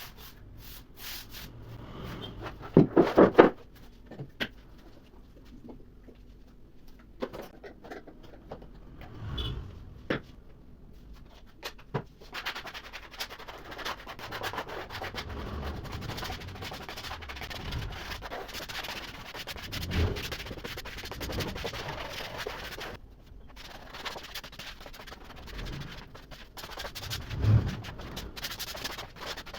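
Rubbing and scraping on wood, continuous for long stretches, with a quick run of four or five loud knocks about three seconds in and scattered clicks before the rubbing starts.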